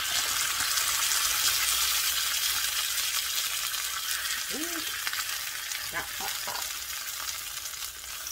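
Corn tortillas dipped in red birria sauce sizzling steadily on a hot griddle, the fat spitting with a constant hiss.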